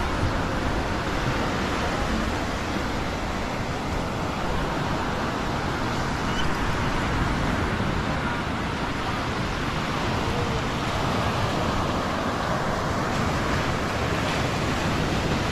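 Steady rushing noise of ocean surf breaking, with no distinct events standing out.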